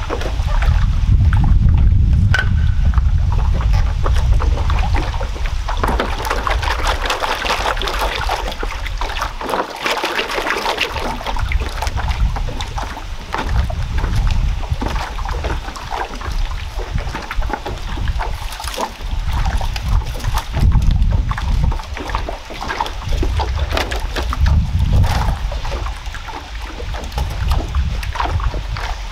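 Footsteps on a floating bamboo raft: many light knocks and clatters of bamboo poles, with water lapping and sloshing under them. Gusts of wind rumble on the microphone, swelling and fading several times.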